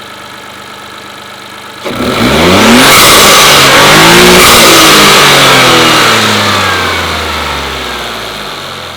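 Toyota GR Corolla's turbocharged 1.6-litre three-cylinder, fitted with a new HKS intake, idling and then revved hard about two seconds in. It holds high revs for a few seconds, then slowly winds back down toward idle. Heard from inside the car.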